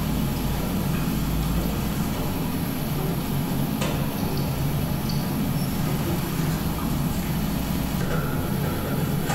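Steady low hum of a freezer's refrigeration unit running, with a faint click about four seconds in.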